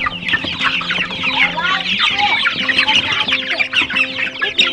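Dozens of young chicks peeping at once in a brooder: a constant chorus of short, high, overlapping cheeps.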